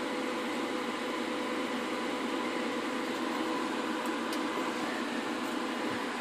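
The big cooling fan of an Amplifier Research 5W-1000 RF laboratory amplifier running at full speed: a loud, steady rush of air with a faint steady hum under it.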